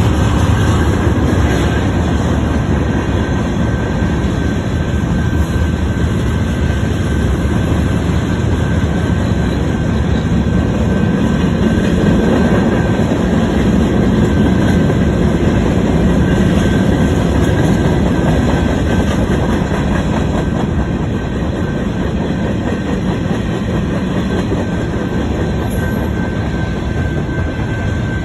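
Freight cars of a long train rolling past: a steady rumble of steel wheels on the rails, with a thin, steady high wheel squeal running through it.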